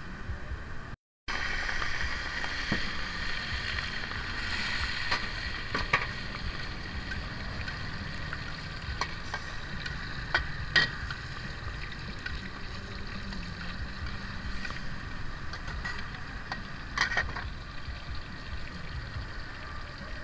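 Wok cooking over a gas burner: a steady rushing burner noise with food sizzling in the hot wok, and a metal ladle clinking against the wok now and then. The sound cuts out briefly about a second in.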